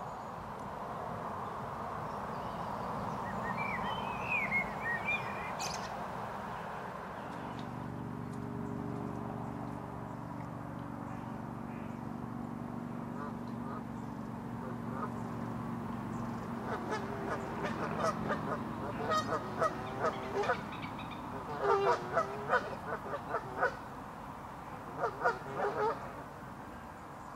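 Canada geese honking in a series of short calls in the second half, in bursts, loudest near the end. Earlier there are a few brief high songbird chirps and a steady low hum.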